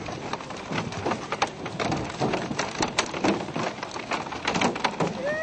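A school of fish leaping around a boat: a dense, irregular patter of splashes and knocks as many fish hit the water and the boat's hull, several every second.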